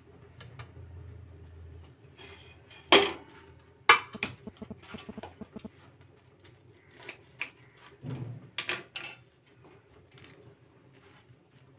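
Steel dishes and utensils clattering: two sharp knocks about three and four seconds in, then a run of quick light clinks, and a few more knocks around eight to nine seconds in.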